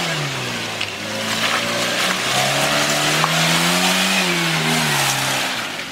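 Toyota Land Cruiser 70-series 4x4 engine pulling through deep mud under load: the revs drop at the start, climb over the next few seconds, and fall again near the end.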